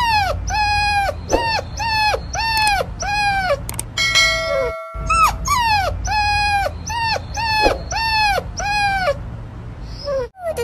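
A puppy whining in a run of short, high-pitched cries, about two a second, each dropping in pitch at its end. A brief ringing tone breaks the run about four seconds in, and the cries stop a little before the end.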